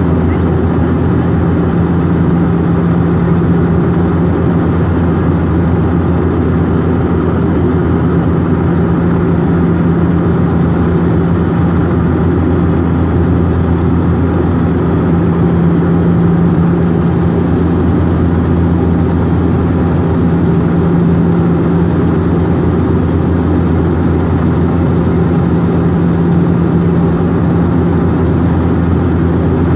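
Steady drone of a turboprop airliner's engine and propeller in cruise, heard inside the passenger cabin: a constant deep hum over a broad rush of airflow.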